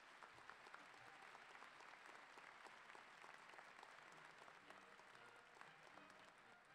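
Faint audience applause, many hands clapping steadily.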